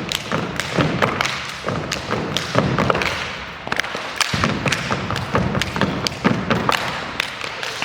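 A rhythmic run of heavy thumps mixed with sharp taps, two or three strikes a second in an uneven pattern.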